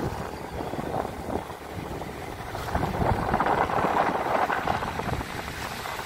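A vehicle travelling along a road, its engine running under rough wind noise buffeting the phone's microphone. The noise gets louder from about three seconds in.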